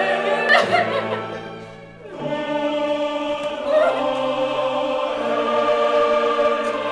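Soundtrack music: choral, operatic singing over orchestra, in long held chords. It fades briefly about two seconds in, then swells back on a new chord.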